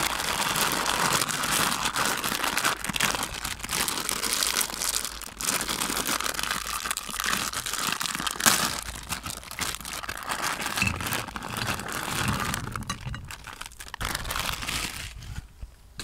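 Thin plastic snack bag crinkling and crackling as hands grip, twist and tear it open, with one sharp loud crackle a little past halfway. The crinkling stops about a second before the end.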